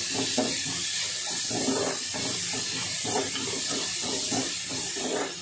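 Sliced onions sizzling in hot ghee and oil in a kadai, a steady hiss, while a wooden spatula stirs them with short scraping strokes against the pan.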